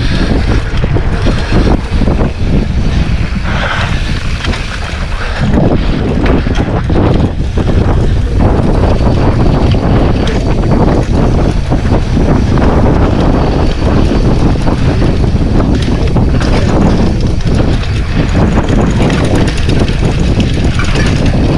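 Wind buffeting the microphone over a mountain bike rattling and its tyres rolling over a rough dirt trail, with many small knocks from bumps.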